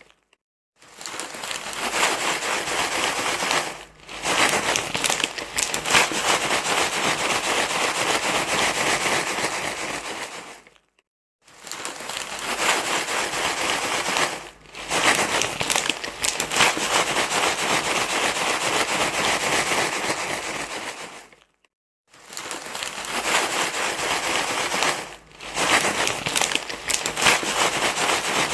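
Dense crinkling rustle, as of something being crumpled and handled, running in stretches of about ten seconds; it drops out briefly about a second in, about eleven seconds in and about twenty-two seconds in, with shorter dips in between.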